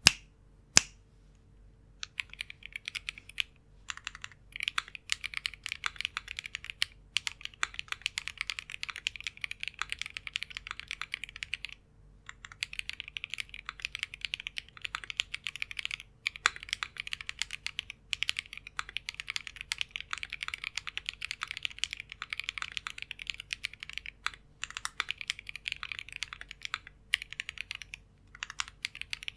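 Typing on the letter keys of a Shiori R2 custom mechanical keyboard with lubed WS Onion switches, an aluminium plate and JTK HSA keycaps: a fast, steady stream of keystrokes with a few short pauses. Two sharp clicks, louder than the typing, come at the very start before the typing begins about two seconds in.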